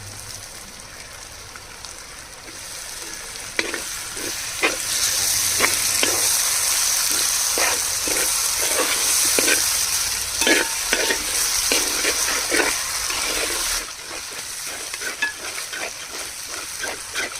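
Chopped tomatoes, onions and ginger-garlic paste sizzling in hot oil in a pan while a spoon stirs and scrapes, knocking against the pan again and again. The sizzle grows louder about five seconds in and falls away a few seconds before the end.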